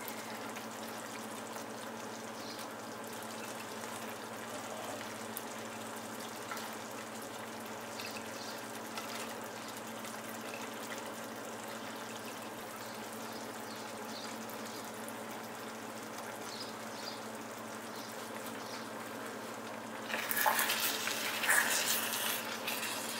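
Tomato-masala gravy sizzling faintly and steadily as it cooks in the pan, with a few small ticks. Near the end, chopped vegetables are tipped in and knock against the pan.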